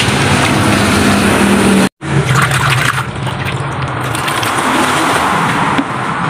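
Water sloshing and pouring in a tyre-testing water tub being cleaned, a hand swishing the water and a stream splashing onto the soapy surface. The sound cuts out abruptly for a moment about two seconds in.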